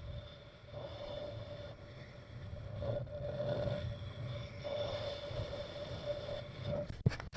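Wind rumbling on an action camera's microphone and the scrape of snow sliding underfoot during a run down a ski slope, swelling and easing as speed changes. A faint steady hum sits under it, and a single sharp knock comes near the end.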